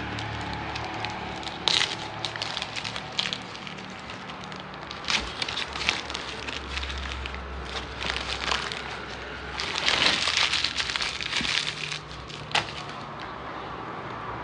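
Paper sandwich wrapper crinkling and crackling as it is handled, peeled back and crumpled, in irregular bursts that are densest about ten seconds in, over a low hum.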